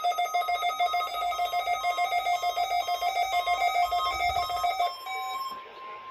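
A weather radio receiver's alert alarm sounds as a rapid, trilling electronic beep, set off by the NOAA warning alarm tone. About five seconds in, the receiver's alarm stops, leaving the broadcast's steady 1050 Hz warning alarm tone.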